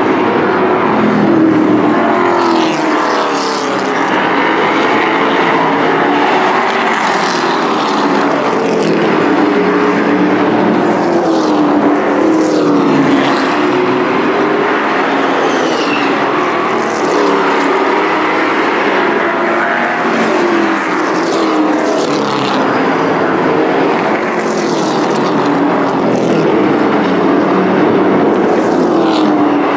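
A pack of Thunder Truck race trucks' engines running at racing speed around an oval, loud throughout. The engine pitch rises and falls over and over, with repeated swells as trucks pass by.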